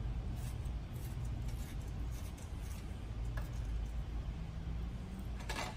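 Faint handling clicks and ticks as paper component tape and tweezers are worked against the metal Yamaha CL pick-and-place feeder, a few scattered clicks with the sharpest near the end, over a steady low hum.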